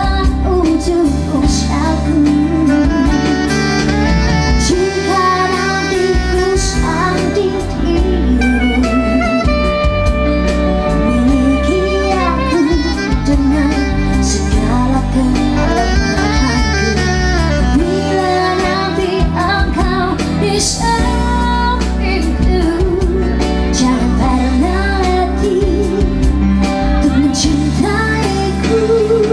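Live band music: a woman sings with vibrato into a microphone, backed by saxophone and keyboard with a steady bass line.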